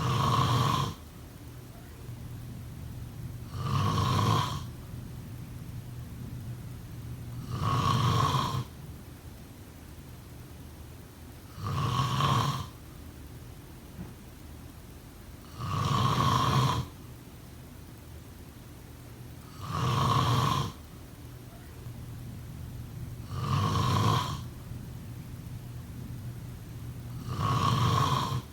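A person snoring in a slow, regular rhythm: one loud snore about every four seconds, each lasting about a second, with a low steady hum in between.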